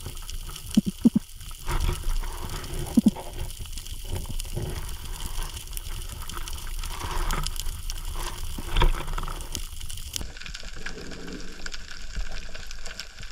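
Underwater ambience picked up by a camera in its housing, played at double speed: a steady watery hiss with scattered fine crackling. A few brief low sounds stand out about a second in and again near three seconds.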